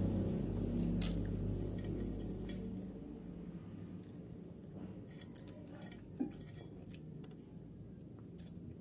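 A low vehicle-like rumble fading away over the first few seconds, then close-up eating sounds: wet chewing with scattered light clicks of dishes or cutlery.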